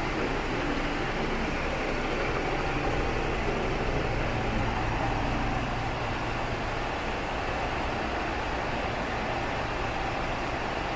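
Scania G440 tractor unit's six-cylinder diesel engine idling steadily.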